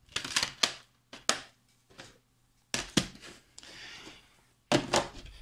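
Black plastic DVD case being handled and closed: a series of sharp plastic clicks and knocks in small clusters, with a brief soft rubbing sound a little past the middle.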